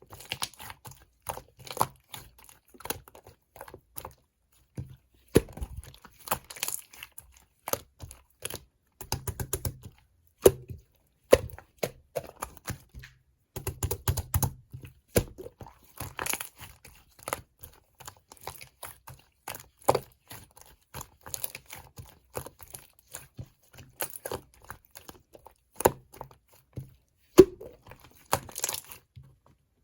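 Slime being squished, poked and stretched by hand, giving irregular crackling clicks and pops.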